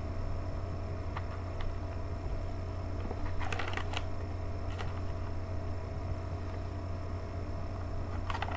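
A steady low hum with a few faint clicks, and a short burst of crunching about three and a half seconds in as a mouthful of peanuts, fudge and cookie is chewed.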